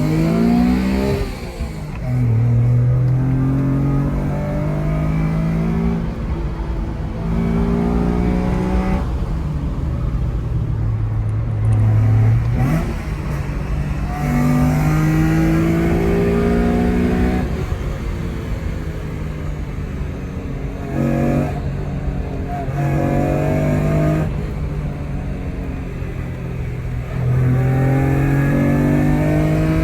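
Mitsubishi FTO's 2.0-litre 6A12 MIVEC V6 revving hard through the gears with a loud exhaust. The pitch climbs with each pull and falls back at each shift, over and over, with short lifts off the throttle between runs.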